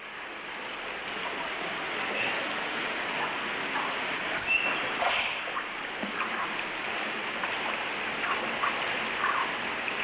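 Water pouring steadily from a spout into a hot-spring bath pool, a continuous splashing rush like a small waterfall.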